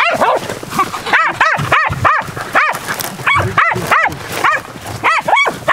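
Small dogs yapping at a downed kudu bull: a rapid series of short, high yips, about two a second, each rising and then falling in pitch.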